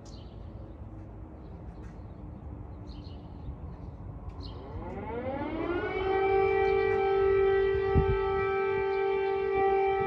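Civil-defence air-raid siren starting up about halfway through: its pitch rises over a second or so, then holds as a steady wail, sounding an air-raid alert. A brief low thump about eight seconds in.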